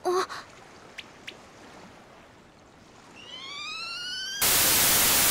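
Anime sound effects: a girl's brief pained 'ow', two faint ticks, then a tone rising steadily in pitch for about a second, cut into by a loud burst of hiss that stops abruptly.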